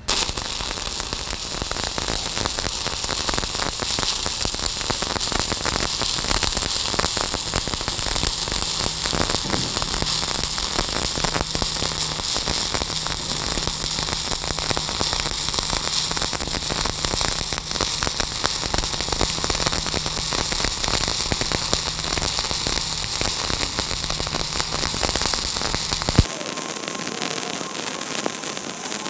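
Stick (shielded metal arc) welding with a 1/8-inch 7018 electrode at 135 amps: the arc's steady, dense crackle and sizzle as a wide fill bead is run on steel plate. Near the end the sound drops to a quieter, thinner crackle.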